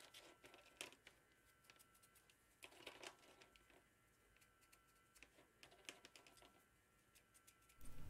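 Near silence, with a few faint, scattered clicks and rustles as silicone test leads and their plastic spring-loaded hook clips are handled.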